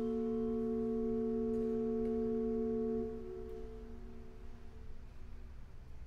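Pipe organ holding the closing chord of a piece, several steady tones together, released about three seconds in and dying away in the church's reverberation over the next second or two.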